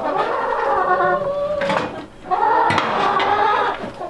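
A domestic cat meowing: two long, drawn-out meows about a second and a half each, the hungry cat asking for food. A metal food bowl clinks a couple of times between them.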